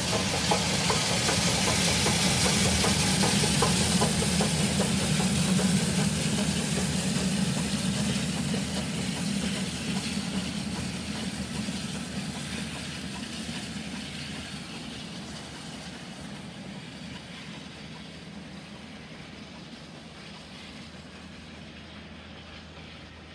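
LNER B1 class steam locomotive 61306 Mayflower and its coaches passing, loudest in the first few seconds and then fading steadily as the train draws away.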